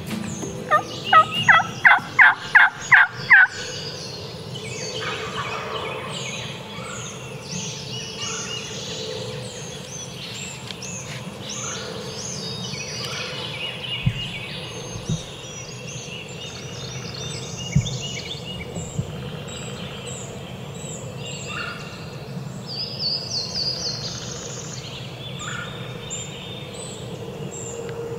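A run of about eight loud turkey yelps in the first few seconds, about three a second, followed by songbirds chirping in the woods.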